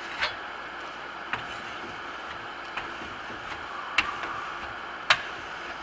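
Metal trowel burnishing a coat of Grasello Venetian plaster: a steady scraping hiss of the blade drawn over the drying plaster, with about five sharp clicks roughly a second apart as the blade edge taps the board.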